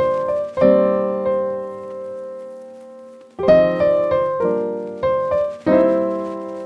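Background piano music: chords struck and left to ring, one of them held and fading for nearly three seconds before the playing picks up again.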